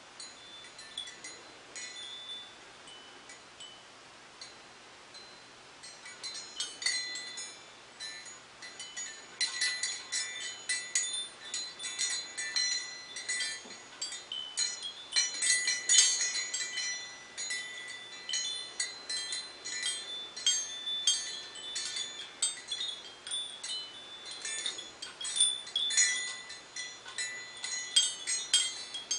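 Beaded crystal suncatcher wind chime with small metal bells tinkling irregularly as it sways, in bright ringing notes. For the first several seconds there are only a few faint tinkles, then from about six seconds in the chiming turns busy and louder.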